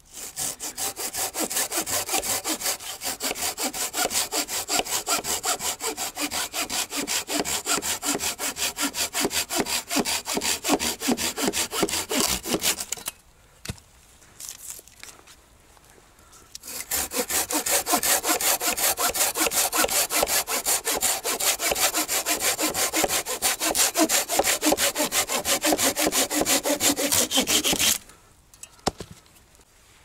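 Folding hand saw with a 25 cm fine-toothed, hardened blade cutting through a fallen branch in quick, even back-and-forth strokes. The sawing stops for about three seconds just before the middle, starts again, and stops about two seconds before the end. The saw cuts well.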